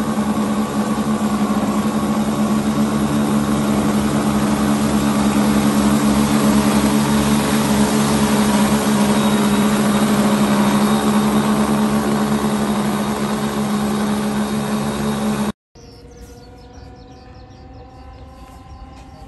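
Twin engines of a radio-controlled DC-3 scale model running at close range with a loud, steady drone. After a sudden cut about fifteen seconds in, the model is heard flying at a distance, much quieter, its engine pitch rising slowly.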